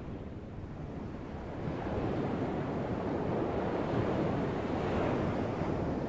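Atlantic ocean surf breaking and washing ashore: a steady rushing noise that swells about a second and a half in and eases slightly near the end.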